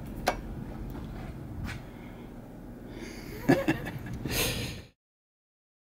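A wall light switch clicks once just after the start, then faint rustling and a couple of knocks about three and a half seconds in, and a short breath-like rush of noise; all sound cuts off abruptly about five seconds in.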